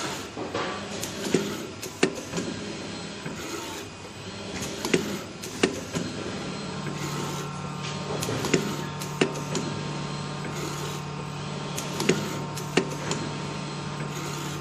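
CNC bottle screen printer (MSP-400X) running through its printing cycles: pairs of sharp mechanical clicks about 0.7 s apart, repeating every three and a half seconds, over a steady low hum that grows louder about halfway through.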